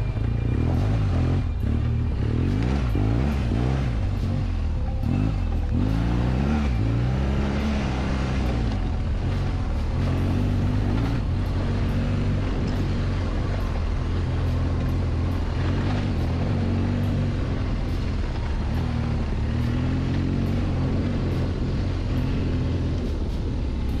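Motorcycle engine, a BMW R1200GS flat-twin, riding a rough dirt trail, its pitch rising and falling with the throttle, with scattered knocks from the track.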